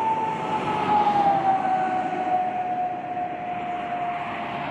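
Jet airliner's engines, a steady rushing noise with a whine that slowly drops in pitch over a few seconds.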